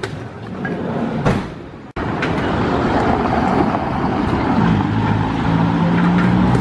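Road traffic noise with a large vehicle's engine running as a low steady hum. The sound drops out abruptly about two seconds in and comes back louder.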